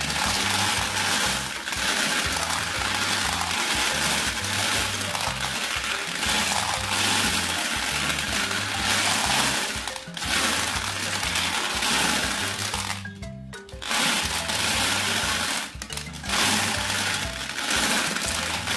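Glass marbles clattering as they tumble out of a turning plastic toy cement mixer drum and pour down its plastic chute into a toy truck bed: a dense, continuous rattle that breaks off briefly a few times. Background music with a steady bass runs underneath.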